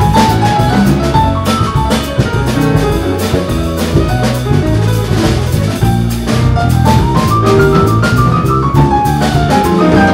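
Jazz piano trio playing live: piano, bass and drum kit. The piano plays stepwise melodic runs that fall and then rise, over a walking bass line and regular cymbal and drum strokes.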